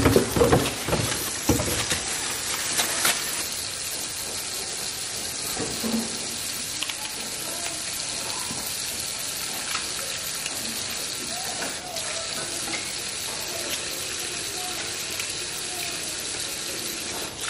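Kitchen tap running steadily into a sink filled with water and apples. In the first couple of seconds a plastic bag rustles and apples tumble into the water.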